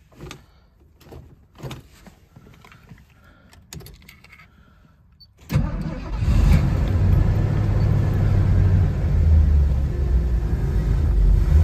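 A few light knocks as the accelerator is pumped a couple of times on a cold engine, then about five and a half seconds in the Corsair roadster's engine cranks and catches almost at once from cold, settling into a steady fast idle while it warms up.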